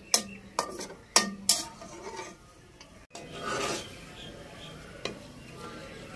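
Metal slotted spatula clinking and scraping against a steel karahi and plate while fried onions are lifted out of the pan. There are several sharp clinks in the first half, then a longer scrape a little after halfway.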